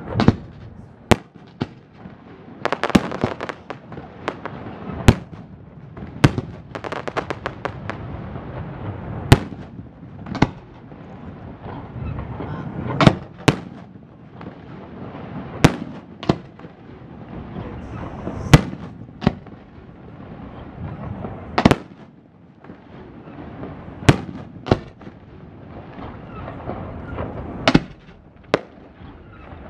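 Aerial fireworks display: shells bursting in sharp bangs at irregular intervals, roughly one every second or two, with spells of rapid crackling and a steady rumble between the bangs.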